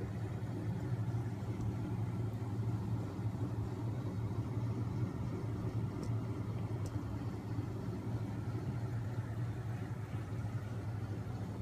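Homemade magnet-motor rig running: its spinning magnet rotors and generator wheels, driven by a small 12 V electric motor, give a steady low mechanical hum.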